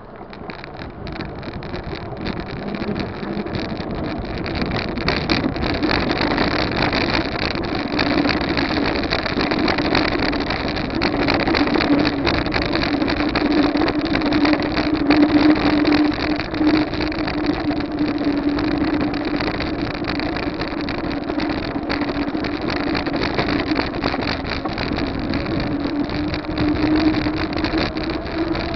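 Wind buffeting the microphone of a camera riding along on a bicycle, a steady rushing and fluttering noise with a low hum beneath it. It grows louder over the first several seconds as the ride picks up, then holds.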